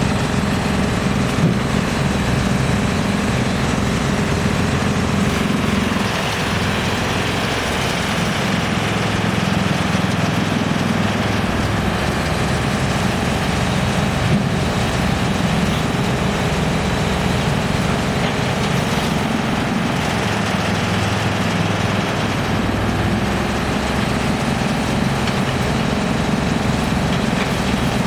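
Large electric-motor-driven drum wood chipper running steadily, with an excavator's diesel engine running alongside, making a continuous loud machinery din with a steady low hum.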